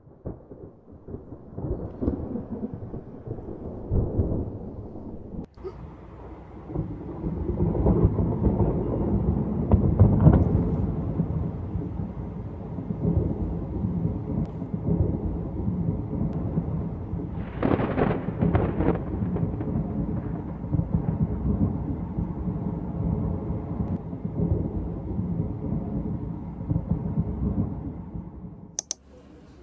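Thunder rumbling in long rolls during a lightning storm, swelling to its loudest about ten seconds in, with a brighter, sharper peal a little past halfway. The rumble is low and growling, like a hungry stomach.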